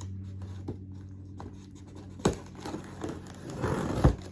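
Packaging being handled while unboxing a vacuum cleaner: a sharp click about two seconds in, then rustling that ends in a knock near the end.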